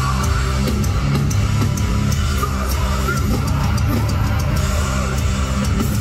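Live band playing loud rock music: electric guitars, bass and drum kit together at full volume, as heard from the crowd in a concert hall.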